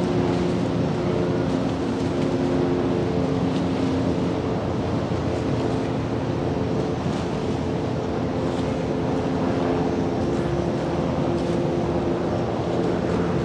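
Harbour vessels' engines droning as tugboats pass, a low hum that comes and goes over steady wind noise on the microphone.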